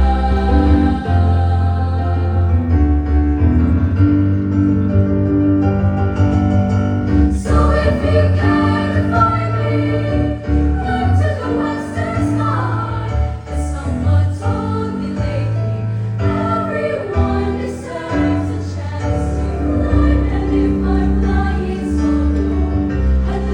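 Children's choir singing, with sustained low accompaniment underneath; the sound grows fuller and brighter about seven seconds in.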